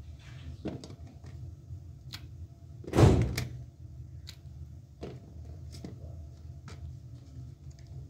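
Small knife clicks and snips as green chillies are cut by hand, over a steady low hum. One loud thump about three seconds in.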